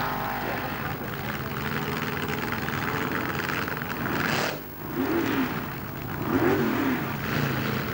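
Drag-racing car engines: steady loud engine noise, then after a brief dip about four and a half seconds in, an engine revved up and down twice.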